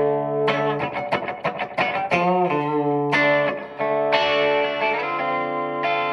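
Electric guitar played through a Donner Verb Square Evolution+ mini reverb pedal on its spring reverb setting: ringing chords with reverb tail. A quick run of picked notes comes in the first couple of seconds, with chord changes about two and a half and four seconds in.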